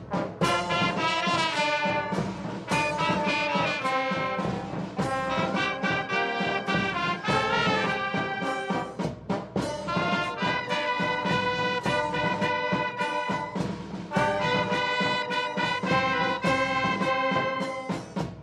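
Military brass band playing sustained ensemble notes.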